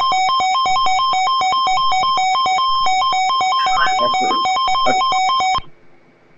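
Electronic two-tone signal, switching rapidly and irregularly between a lower and a higher pitch, cutting off abruptly near the end.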